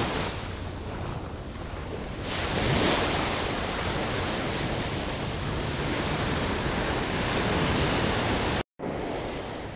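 Ocean surf breaking and washing up a sandy beach, a steady rush that swells louder about two to three seconds in. The sound cuts out for a moment near the end.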